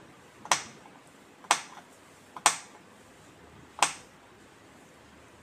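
Four sharp clicks about a second apart, each with a faint tick just before it: a small knife cutting garlic cloves down onto a small hard plate.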